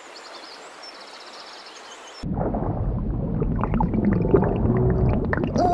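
Faint hiss of a shallow stream, then about two seconds in a sudden switch to a loud, low underwater rumble with scattered pops: a cartoon underwater ambience effect.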